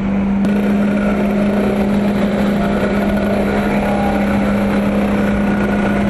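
Petrol backpack leaf blower running steadily. A constant engine drone mixes with air rushing from the nozzle as it blows fallen leaves across asphalt.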